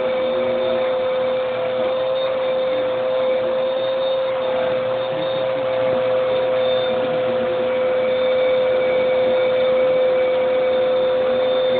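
Steady motor hum with one strong, unchanging tone over a noisy rush, running without a break and growing slightly louder near the end.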